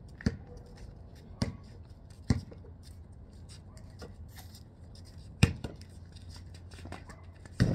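A basketball bouncing on a concrete driveway: about five separate, irregularly spaced thumps, the loudest about two-thirds of the way through.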